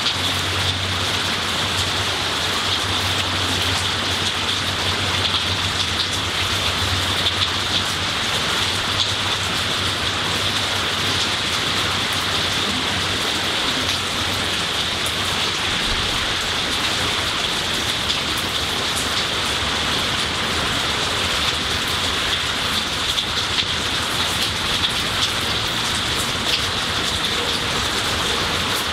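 Steady rain falling on tree leaves, grass and garden plants: an even hiss of rainfall with drops pattering nearby.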